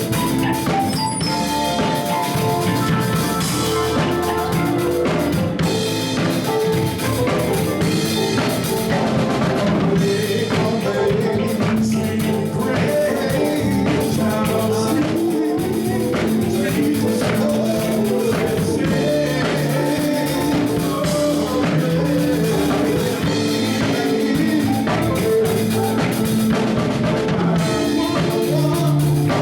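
Band music with a drum kit keeping a steady beat.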